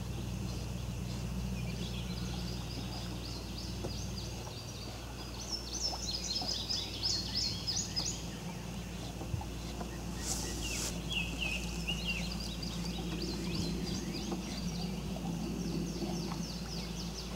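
Wild birds chirping and trilling in rapid runs of short high notes, over a steady low background hum, with a brief hiss about ten seconds in.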